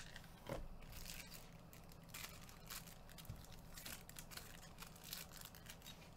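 Plastic trading-card packaging being torn open and crinkled: faint, irregular rustling and tearing bursts throughout.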